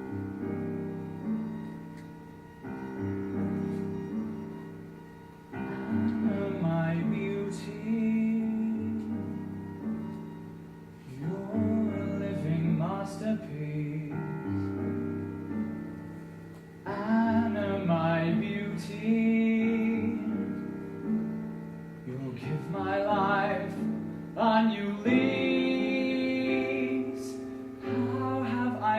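Piano-led music for a stage musical number: sustained chords in swelling phrases, with a wavering melody line over them.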